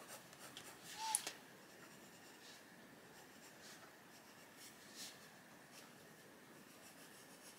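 Castle Arts Gold coloured pencil scratching faintly on colouring-book paper in shading strokes, with one brief louder sound about a second in.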